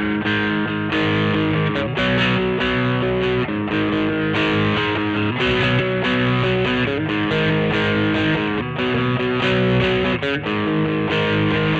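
Squier Vintage Modified Jaguar electric guitar playing sustained, distorted chords that change every second or two, through a Peavey Vypyr VIP 2 modelling amp.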